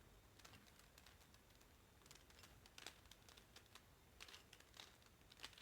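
Faint, irregular clicking and clacking of a plastic 3x3 speedcube's layers being turned during a solve.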